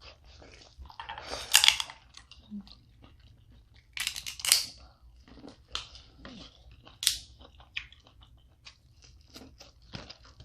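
Close-miked eating of snow crab legs and corn in sauce: chewing and crunching with scattered small cracks and clicks, and a few louder, sharper bursts about a second and a half, four seconds and seven seconds in.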